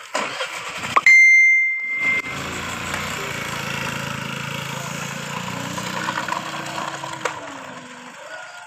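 A single bright, bell-like ding about a second in that rings out and fades over about a second. It is followed by a steady low rumble with a hum.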